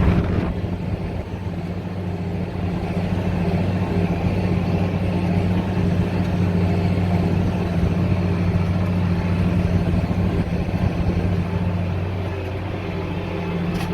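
Farm tractor engine running steadily under load while pulling a roller packer over seeded ground, with a rough rattling rumble throughout. A sharp knock sounds right at the start.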